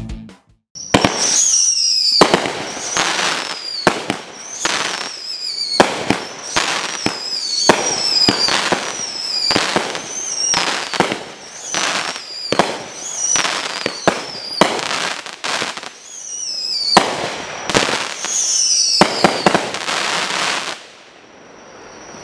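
Mad Ox Pro Ox Whistle and Crackle firework cake firing a rapid string of shots, about one or two a second, each with a sharp bang, a falling whistle and a spray of crackling. The barrage stops about a second before the end.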